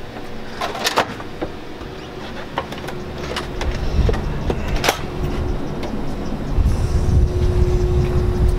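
A hotel exit door's metal push bar clicking and clunking as it is pushed open, then a rumble of wind on the microphone once outdoors, with a single sharp clack about five seconds in.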